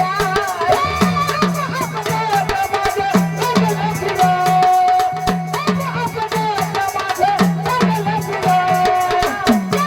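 Live Marathi gondhal devotional folk music: a woman singing an abhang over a deep drum beat and rattling hand percussion keeping a quick, steady rhythm. She holds one note twice, about four and eight seconds in.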